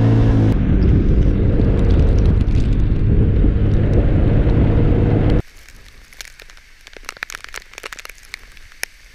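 Loud low wind buffeting on the camera microphone over a vehicle driving on a rain-soaked road in hurricane-force wind. About five seconds in it cuts off abruptly to a much quieter stretch of scattered crackles and clicks from rain hitting the camera.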